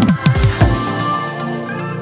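Electronic background music: the drum beat stops just under a second in, and the track fades out on held synth notes that grow steadily duller.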